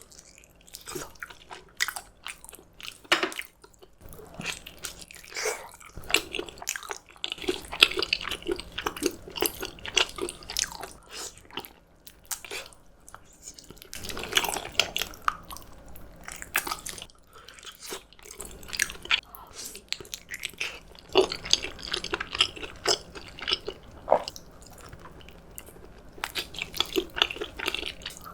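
Close-miked eating sounds: a person biting and chewing, with crunchy bites and wet mouth noises coming in clusters.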